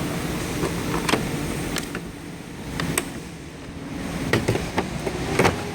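Scattered sharp clicks and knocks of tools and tool cases being handled in a toolbox drawer, over a steady low background hum.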